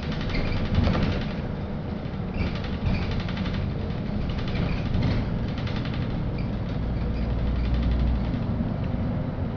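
Inside a LiAZ-5292 low-floor city bus on the move: steady engine and road rumble with the body and fittings rattling, and a knock about a second in.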